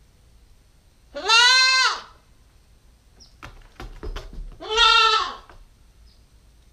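Nubian goat kid bleating loudly twice, each call about a second long and rising then falling in pitch, with a few light knocks between the calls.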